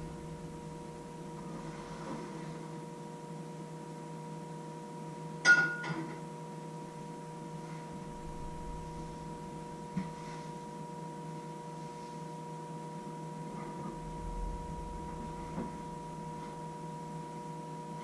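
A steady electrical hum of a few held tones, with a few faint knocks. About five and a half seconds in comes one sharp metallic clink that rings briefly.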